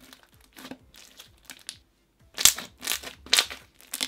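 Hands pressing and squishing a soft slime mixed with foam beads, making sticky crackling squelches. The sounds are soft at first, then three loud squelches come close together in the second half.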